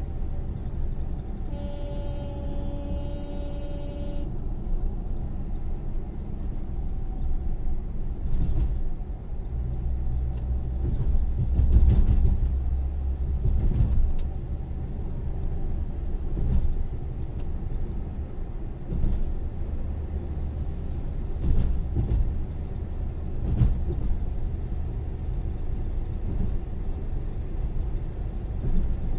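Steady road and engine rumble of a moving car heard from inside the cabin, with occasional light bumps. A vehicle horn sounds one long steady blast of about two and a half seconds near the start.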